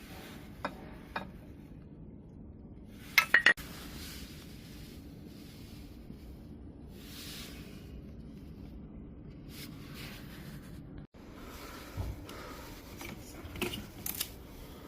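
Scattered metallic clinks and rubbing of metal parts being handled, with a loud quick cluster of clicks about three seconds in and more knocks and clinks near the end, over a low steady hum.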